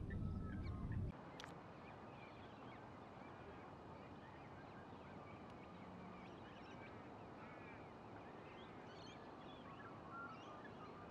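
A low rumble that cuts off abruptly about a second in, followed by a faint steady hiss with many short, high bird chirps and whistles scattered throughout, growing busier near the end.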